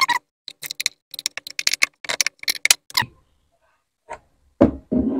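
Plastic retaining clips of an old BMW headlight snapping open as they are pried with a screwdriver to free the lens: a quick run of sharp clicks, a short pause, then a few more clicks near the end.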